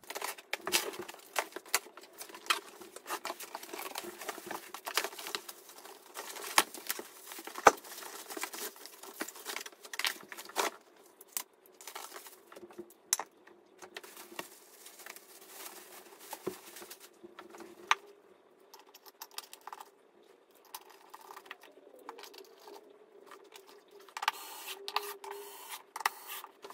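Handling noises of a swivel chair being unboxed and assembled: cardboard and plastic wrapping rustling and tearing, and metal parts clinking and knocking, with one sharp knock about eight seconds in. Near the end a power drill runs in short bursts, driving the screws of the seat's mounting plate.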